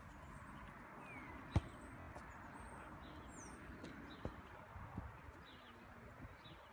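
Quiet outdoor background with one sharp thud of a football being struck about one and a half seconds in, and a fainter knock a little after the middle. Faint bird chirps.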